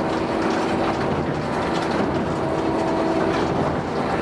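Claas 3300 big square baler running empty off the tractor PTO, ticking over to warm its gearbox oils: a steady mechanical clatter from the drives and intake, with a steady tone running underneath.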